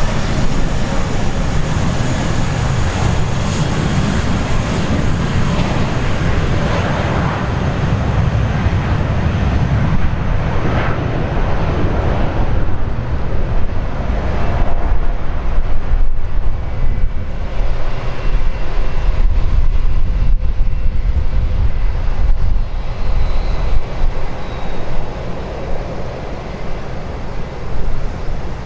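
Airbus A320 with IAE V2500 engines at takeoff power, a loud continuous jet engine noise through the takeoff roll and liftoff. About halfway through, the high hiss fades and a deep low rumble takes over as the jet lifts off and climbs away.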